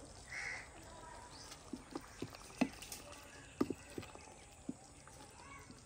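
Faint, irregular light knocks and clicks, about ten spread over several seconds, with a short soft rustle near the start.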